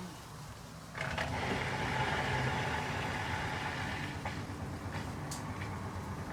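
Indesit Innex BWE 91484 washing machine drain pump switching on about a second in and running steadily with a rough grinding noise. The grinding began after a face mask stuck in the impeller was taken out of the filter.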